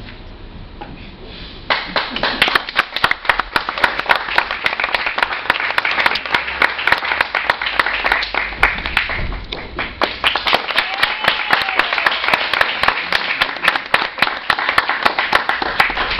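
Audience applause in a theatre, breaking out suddenly about two seconds in as dense, continuous clapping.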